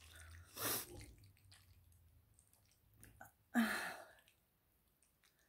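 Two short, breathy mouth sounds from someone eating pasta, a softer one about a second in and a louder one a little before four seconds in.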